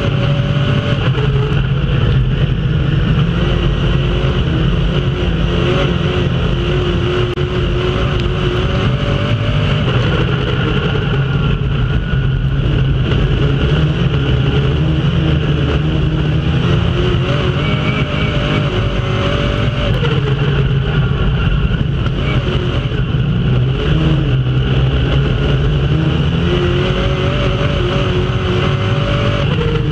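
Dirt-track race car's engine heard from inside the cockpit at racing speed, its pitch holding high and then dropping and climbing again about every ten seconds as it goes around the laps, over a steady noisy rush.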